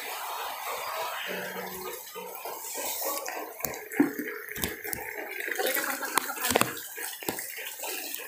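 Water splashing and sloshing in a bucket, with a steady wash of water sound and sharp splashes and knocks that come more often from about halfway through.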